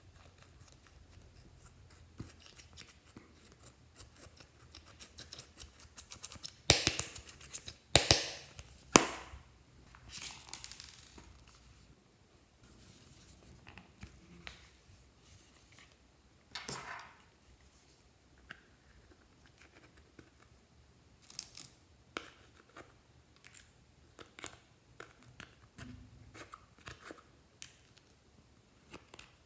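Scissors snipping through paper: a series of crisp cuts and crackles, the loudest three close together about seven to nine seconds in, then another near the middle and lighter snips after.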